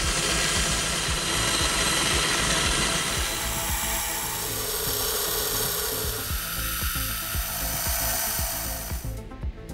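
Small twist drill in a running machine spindle cutting through a thin brass disc, a steady whirring hiss that stops suddenly about nine seconds in.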